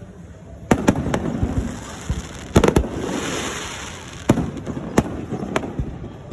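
Fireworks bursting overhead: a run of sharp bangs, several in quick pairs, each trailing a low rumbling echo, with a hissing crackle about three seconds in.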